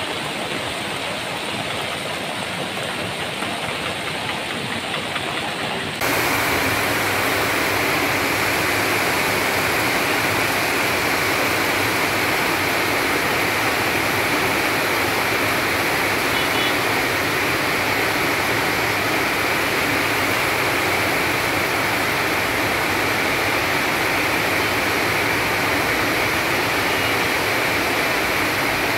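Floodwater rushing: a swollen river in spate pouring over and past a bridge, a steady noise of churning water. About six seconds in it jumps suddenly to a louder, fuller rush and stays there.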